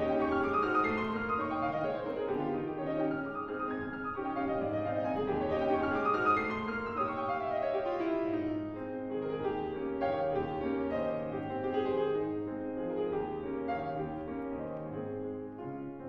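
Grand piano played solo in a classical style: a continuous, flowing passage of chords and melody over a repeating low bass pattern.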